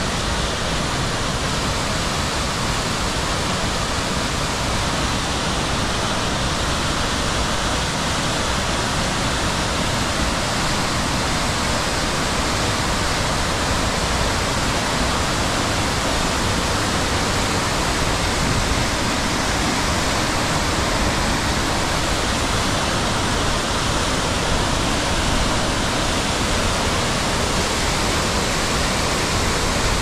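A waterfall pouring down a rock face into a rocky mountain creek: a steady, even rush of falling and tumbling water.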